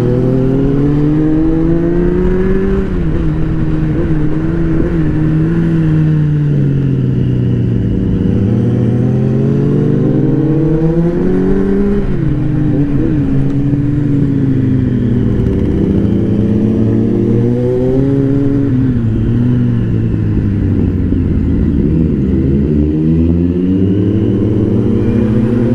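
A naked motorcycle's engine running under the rider, its pitch climbing and dropping several times as the throttle is opened and closed through the bends.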